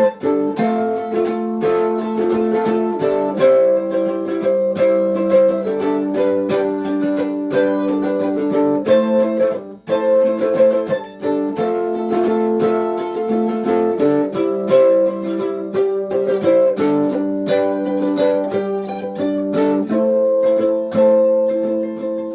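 Instrumental break played on a homemade electric cigar box mandolin: picked and strummed chords, with a brief pause about ten seconds in.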